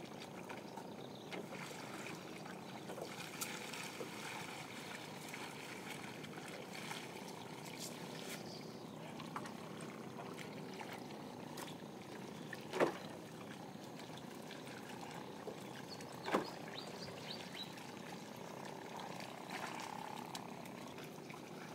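Faint steady water noise, trickling and lapping, as a fishing net is worked from a small boat. Two short knocks about 13 and 16 seconds in.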